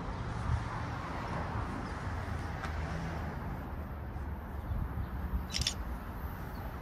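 Steady low engine hum with outdoor background noise, and a brief clatter of clicks about five and a half seconds in.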